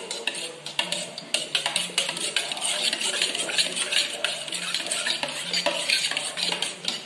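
A metal spoon stirring thick homemade liquid hand soap in a metal pot: continuous fast scraping and clinking against the pot's sides and bottom, with a wet sloshing of the soap.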